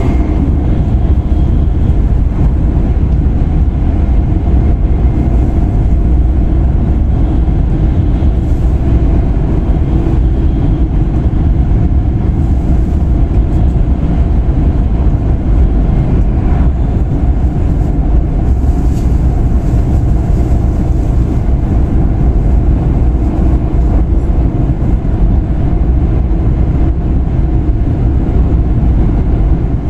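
Interior noise of an E5 series Shinkansen running at speed along a viaduct: a loud, steady low rumble that does not change.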